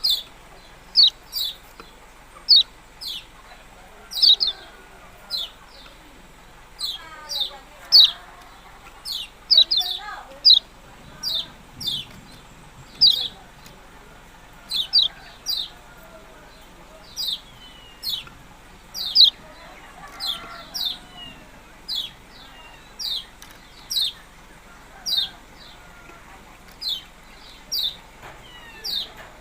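Kecial kuning, a small songbird, giving sharp 'ciak' chirps. They come over and over, about one or two a second, each a short high note falling quickly in pitch.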